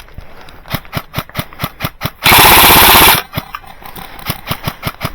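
Golden Eagle MCR airsoft light machine gun firing full-auto: a loud burst of about a second in the middle, with another starting right at the end. Between the bursts come quieter, evenly spaced cracks of airsoft fire, about five or six a second.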